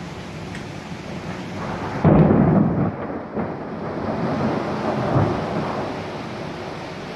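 A clap of thunder breaks about two seconds in over steady heavy rain, then rumbles and fades over the next few seconds.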